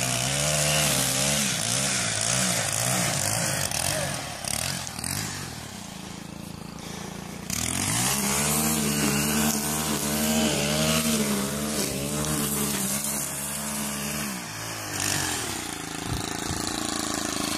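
Handheld petrol strimmer engine running, its pitch wavering up and down as it is throttled while cutting grass. It eases off for a few seconds midway and again near the end.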